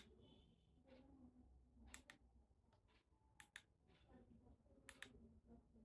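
Faint sharp clicks in quick pairs, about every second and a half, over a low hum.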